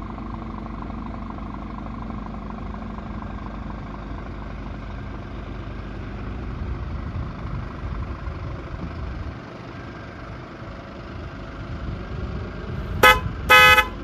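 A truck engine runs steadily, then a horn sounds twice near the end, the second blast a little longer than the first.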